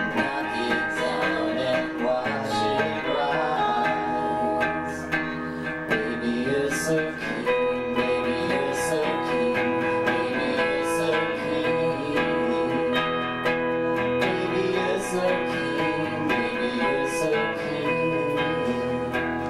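Live band playing without a drummer: strummed guitars carrying the song at a steady level, with no break.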